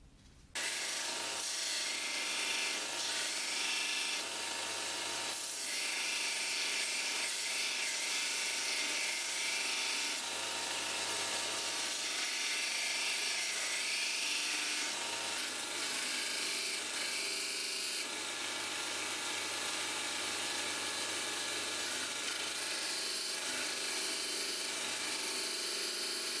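An electric power tool, the kind used to strip rust from a blade, starts just after the beginning and runs at a steady speed with a high whine.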